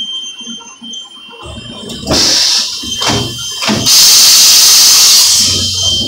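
Matsuura MC-500 machining centre's automatic tool changer swapping to tool 3: a short blast of compressed air about two seconds in, two clunks, then a long loud hiss of air from about four seconds in. The hiss comes from the pneumatic tool release.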